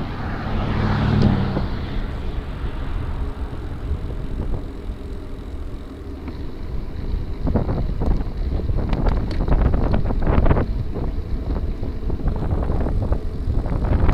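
Wind buffeting the microphone on a moving gravel bike, a steady low rumble. From about halfway through, a rapid clatter of knocks and rattles comes from the Motobecane Fantom Cross bike jolting over rough trail.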